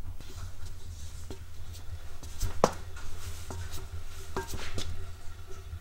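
A few light metallic clinks and knocks, some ringing briefly, as metal machine parts are handled, over a low steady hum; the loudest knock comes a little before the middle.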